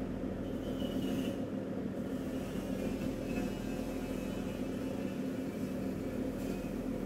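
Steady low drone of a RoRo ferry's engine, heard through a wireless lavalier mic with its environmental noise cancellation switched on, which leaves mostly the low hum and little of the higher noise.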